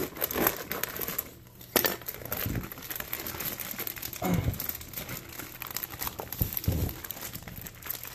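Water-filled plastic fish-shipping bag crinkling and rustling as it is gripped and handled, with a sharp click just under two seconds in and two dull low thumps about four and seven seconds in.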